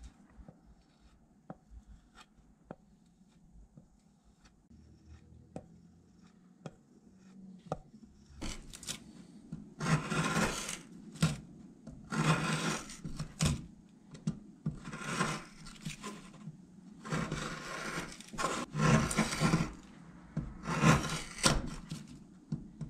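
Hook knife cutting into basswood: a run of scraping, shaving cuts, each about a second long, starting about eight seconds in after a stretch of faint small clicks.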